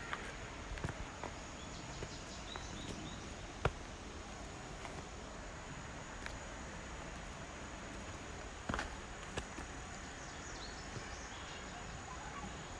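Footsteps on a hiking trail, with a few sharper knocks and scuffs over a steady outdoor background: a person climbing the track.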